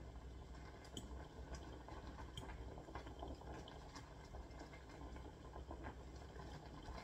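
Pot of Japanese instant noodles boiling softly in water, with a few light clicks of a utensil against the pot as the noodles are lifted and stirred, over a steady low hum.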